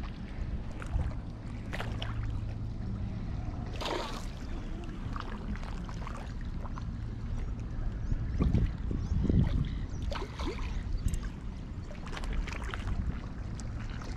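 Outdoor waterside ambience: wind rumbling on the microphone and small water splashes and lapping against a rocky shore, with stronger gusts about two-thirds of the way through. A low steady hum sits under the first few seconds.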